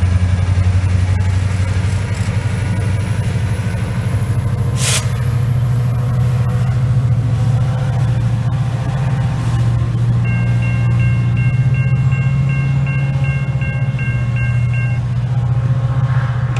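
VRE MP36PH-3C diesel locomotive's engine running with a deep drone that rises in pitch about five seconds in as it throttles up. A brief high hiss comes at about the same time. A level-crossing bell rings steadily, about two strokes a second, in the second half.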